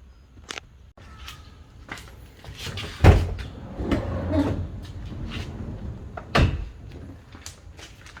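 Toyota Alphard's rear sliding door and its mechanism being handled by hand: scattered clicks and rustling, with two solid door thumps about three seconds in and again near six and a half seconds.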